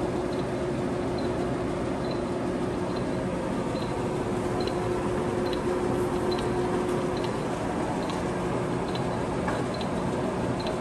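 A 19" x 102" LeBlond engine lathe running under power with its half nut engaged, so the lead screw drives the carriage along. It makes a steady gear-train hum with a held tone and a light, regular tick a little more than once a second.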